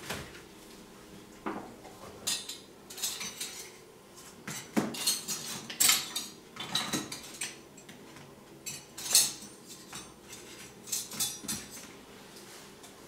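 Palette knife and other metal painting tools clinking and scraping on the palette and work table, in irregular clusters of short clatters, loudest about nine seconds in.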